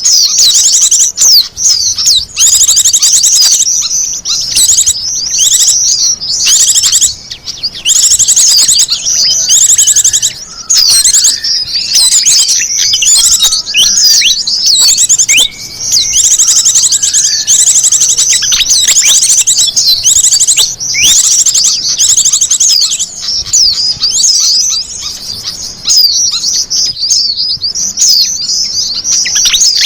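Bird-lure (pikat) recording of small wild birds: loud, dense high-pitched chirping and rapid trills, almost without pause, with short gaps here and there.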